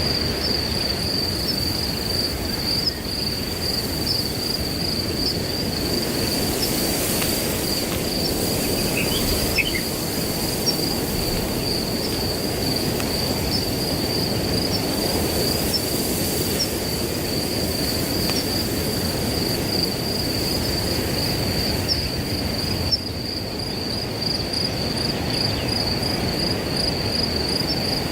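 Wind rushing steadily through grass under a continuous high-pitched cricket trill. A few short, faint bird chirps come about nine seconds in.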